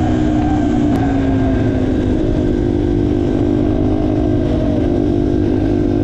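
Yamaha TTR230's single-cylinder four-stroke engine running steadily, its pitch dipping slightly about a second in. The bike is still in its stock, corked-up state, slow with little throttle response.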